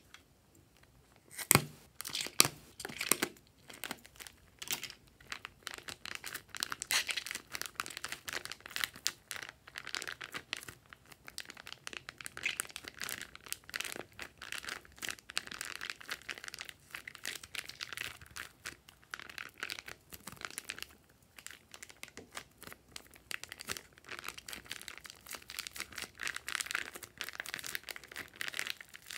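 Plastic zip-lock bag crinkling and crackling as it is squeezed and thick foamy slime is pushed out of it. There are two sharp clicks near the start, then dense, irregular crackling.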